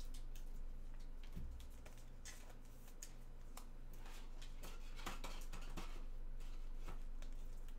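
Trading cards and their packaging being handled: scattered soft clicks and light rustles over a steady low electrical hum.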